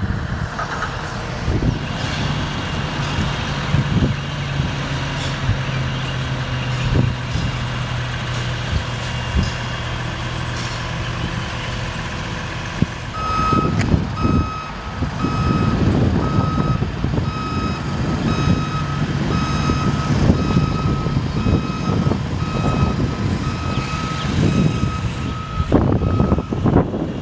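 Bucket truck's engine running steadily with a low hum while the Terex HR40 hydraulic boom is being stowed. About halfway through, a high-pitched warning alarm starts beeping a bit more than once a second and stops just before the end, over a louder rumble.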